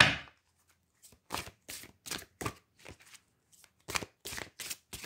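A deck of large glossy reading cards being shuffled by hand: a string of short rustling strokes, two or three a second, with a brief pause about halfway through.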